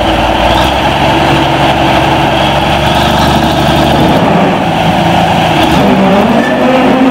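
Cummins 14-litre six-cylinder diesel of an MT-855 four-wheel-drive tractor running under load as the tractor drives forward, its engine note shifting about four seconds in.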